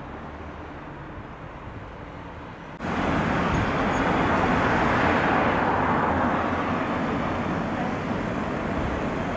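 Street traffic: faint steady street noise, then, after a sudden step up in level about three seconds in, a car passing close by on the road, its tyre and engine noise swelling and then easing off.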